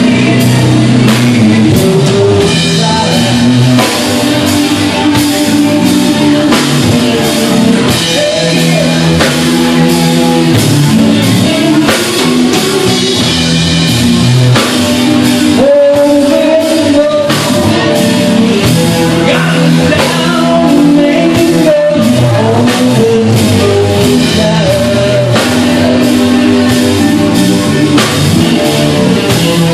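Live rock band playing loud: electric guitar, electric bass and a drum kit.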